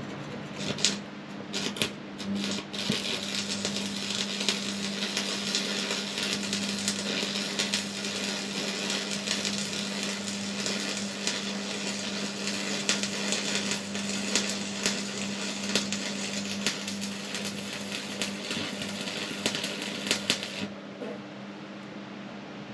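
A workshop tool running with a dense, harsh crackle over a steady low hum. It starts with a few short sputters, runs steadily, and cuts off suddenly near the end.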